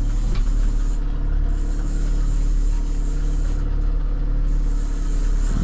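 A fishing boat's outboard motor running steadily at low trolling speed: a constant low drone.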